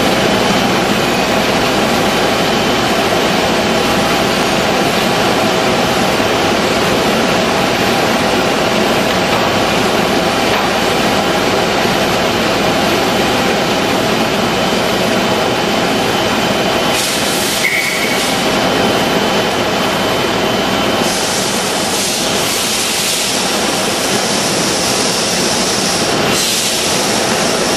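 Chungha CARIW-45B brush-type washing and impurities-removing machine running: a loud, steady mechanical noise, with a higher hiss that comes in briefly about two-thirds in and again for several seconds near the end.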